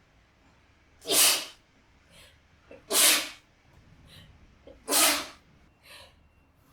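A woman sneezing three times in a row, about two seconds apart: wet, spraying sneezes with short catches of breath between them.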